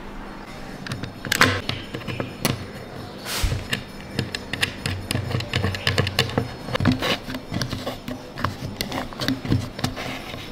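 Irregular clicks, taps and knocks of a plastic quartz clock movement and its brass spindle hardware being handled and fitted into a clock, with a brief scrape about three and a half seconds in.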